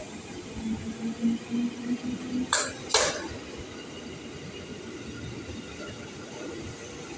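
Electric commuter train rolling slowly past the platform. A low hum pulses for about two seconds, then two sharp knocks come about half a second apart near the middle, followed by steady running noise.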